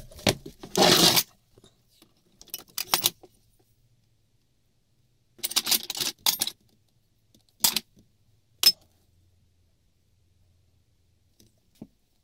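Hand rummaging through a pile of scrap steel offcuts: several bursts of metal pieces scraping and clinking against each other, then two sharp clinks about a second apart.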